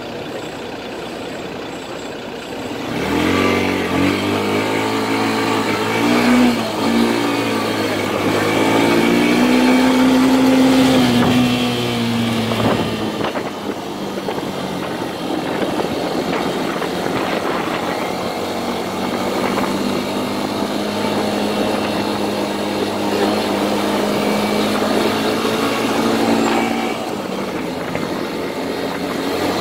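Motorcycle engine pulling away about three seconds in, its pitch rising and falling through several gear changes, then running at a steady pitch while cruising, easing off near the end.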